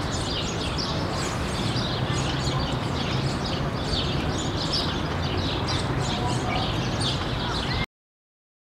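Small birds chirping busily over a steady outdoor background hiss, cutting off suddenly about eight seconds in.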